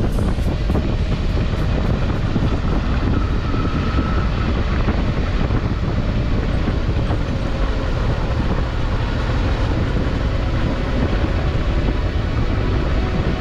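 Suzuki V-Strom 650 XT's V-twin engine running at a steady cruise, with wind rushing over the microphone.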